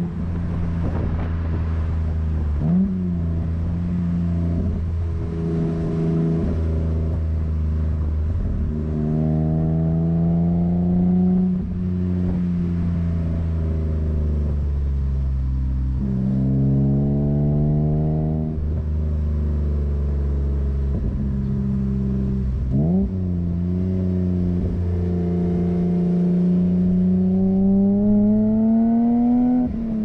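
BMW E30 320i's 2.0-litre M20 straight-six exhaust note through a Scorpion half-system, picked up at the rear bumper. It is under way and the revs climb and fall repeatedly: it pulls up steeply three times, about a third of the way in, past the middle and near the end, and eases off in between with brief breaks where the pitch jumps.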